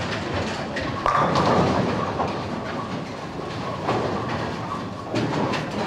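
Bowling ball rolling down a wooden lane and crashing into the pins about a second in, followed by the pins clattering, over the steady rumble of balls and pinsetters on other lanes.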